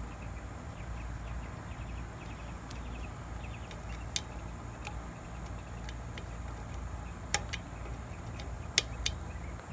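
A few sharp metal clicks as a nut driver works the wire terminal screws on an electric motor's wiring board, the loudest near the end, over a steady low rumble.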